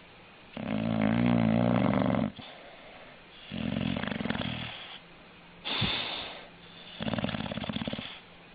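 A sleeping dog snoring: a long, pitched snore starting about half a second in, then a shorter snore, a brief hissing breath, and a rattling, fluttering snore near the end, with quieter pauses between breaths.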